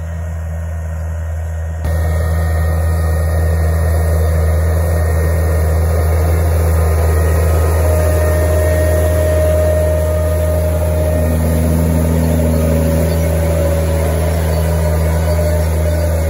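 A large tractor's diesel engine running steadily under load while it pulls a strip-till unit and a precision seed drill sowing rapeseed. It gets much louder about two seconds in, and a thin steady whine joins in about halfway.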